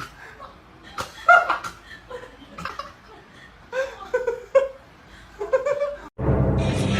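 A person laughing in short separate bursts. Just after six seconds the sound cuts abruptly to a louder, noisy stretch with a low rumble.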